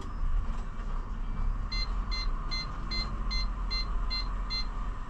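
Bin lorry's reversing alarm beeping, about eight short beeps at roughly two and a half a second, starting a couple of seconds in and stopping near the end, over the truck's engine running.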